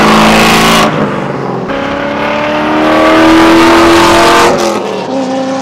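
C5 Corvette's 5.7-litre V8 with long-tube headers, a catless 3-inch X-pipe and an SLP LoudMouth (essentially a muffler delete), really loud under acceleration at highway speed, its pitch rising steadily through a gear. The run comes in a few short cuts, heard from a car driving alongside.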